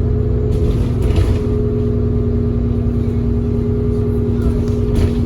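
ADL Enviro400 double-decker bus heard from on board, its engine and drivetrain running with a steady drone and low rumble while under way. There are brief knocks about a second in and again near the end.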